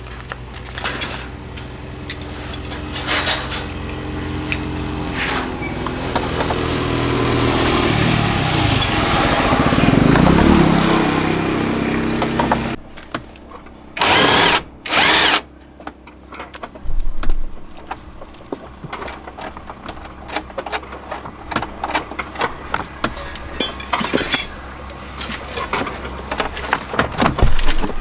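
A small motor-driven tool runs, its pitch shifting as it builds up, then cuts off suddenly about halfway through. Two short loud hissing bursts follow, then scattered clicks and knocks of handled parts.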